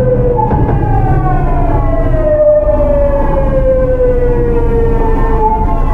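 Early Hitachi GTO-VVVF inverter of a Tokyu 9000 series train whining in several pitched tones over the rumble of the wheels on the rails. The whine steps up in pitch about half a second in, then slides steadily down, the pattern of the inverter's motor tone as the train slows under electric braking.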